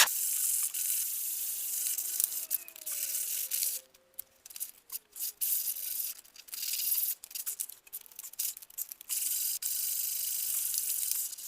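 150-grit sandpaper rubbed by hand over a Datsun 280ZX's steel body panel, stripping primer back to bare metal: a steady scratchy hiss. It breaks into short separate strokes about four seconds in, then runs on steadily again.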